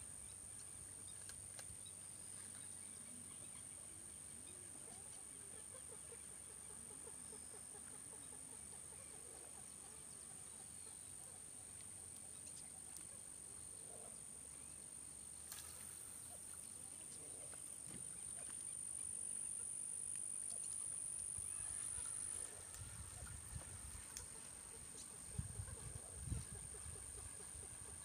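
Faint outdoor ambience under a steady, thin, high-pitched insect drone that swells for a few seconds past the middle and then drops back suddenly. About halfway there is a brief swish as a fishing rod is cast, and near the end a few low thumps.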